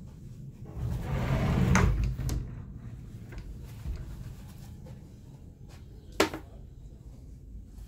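Wooden wardrobe doors being moved and shut: a short rushing swing that ends in a click about two seconds in, and one sharp knock of a door closing about six seconds in.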